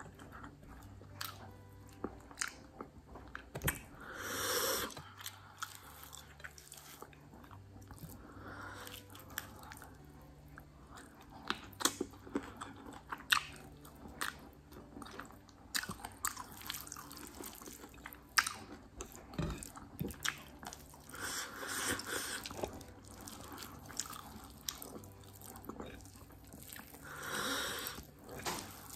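Close-up eating sounds of rice and chicken curry eaten by hand: chewing and wet mouth clicks, with the soft squish of rice being mixed by fingers on the plate.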